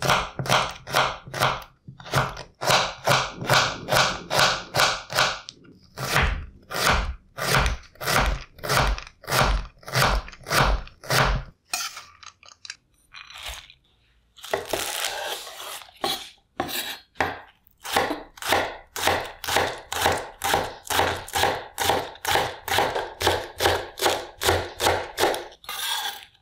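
A chef's knife cutting a carrot into thin sticks on a bamboo cutting board, in a steady run of crisp knocks about three a second. After a short break and a second or two of rustling, the knife chops green onions finely in the same steady rhythm.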